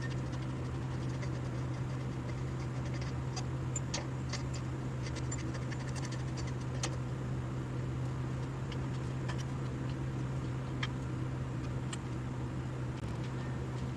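Steady low hum with scattered light clicks and taps of metal parts and tools being handled.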